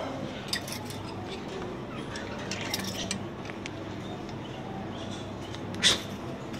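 Budgerigars in a metal wire cage: scattered short chirps and light clicks of beaks and claws on the wire, with one louder sharp chirp about six seconds in, over a steady low hum.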